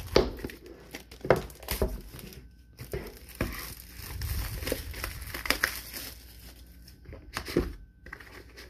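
Cellophane shrink-wrap crinkling and tearing as it is pulled off a cardboard trading-card box by hand, in irregular crackles with a few louder ones.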